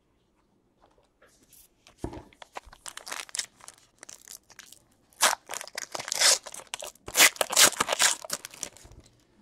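Foil wrapper of a 2017-18 Panini Contenders basketball card pack being torn open and crinkled by hand. It starts about two seconds in as a scatter of small crackles, and the tearing and crinkling gets loudest in the second half.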